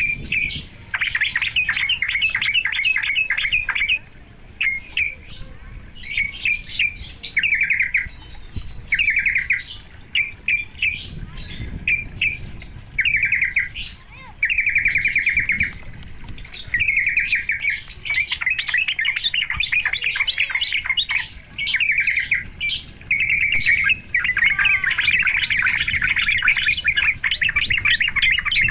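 Trucukan (yellow-vented bulbul) calling in repeated bursts of rapid chattering notes with short pauses between them, the kind of call used to provoke other trucukan into singing.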